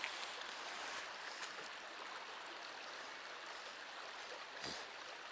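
Stream water running steadily, a soft even rushing, with one faint knock near the end.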